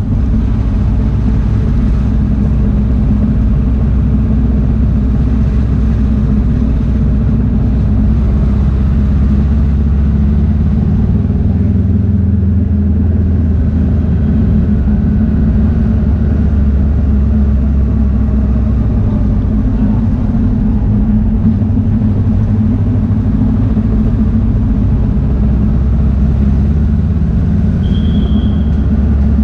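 Honda CB500X parallel-twin motorcycle engine running at low speed while riding, a steady low rumble mixed with wind noise. A short high tone sounds once near the end.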